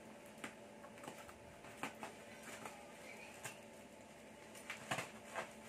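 Scissors snipping through a plastic parcel wrap, with the plastic crinkling: a handful of scattered sharp snips and crackles over a faint steady hum.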